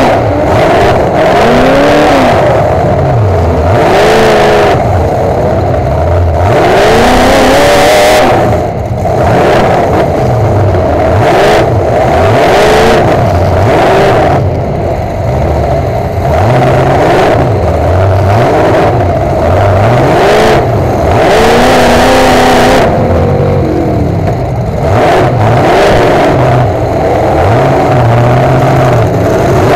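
Demolition derby truck's engine heard loud from inside the cab, revved hard over and over, its pitch climbing and falling every second or two as the driver shifts between forward and reverse.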